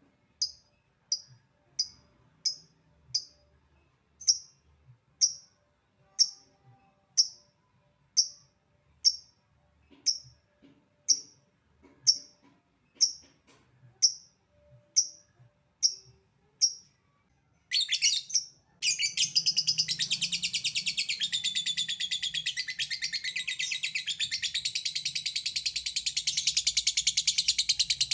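Lovebird calling: a run of single sharp chirps, about one a second (the 'ngetik' call), then, after a short burst, a long rapid unbroken chattering trill, the 'ngekek' song.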